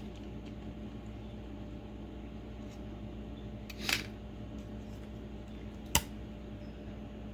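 Steady electrical hum with two brief handling noises: a short scrape about four seconds in and a sharp click about two seconds later.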